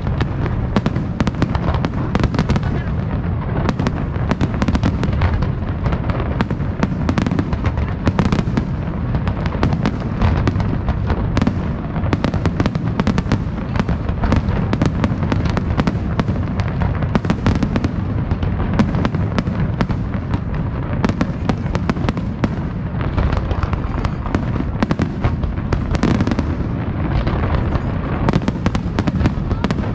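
A fireworks display going off in a dense, unbroken barrage of bangs and crackles, many shells bursting in quick succession.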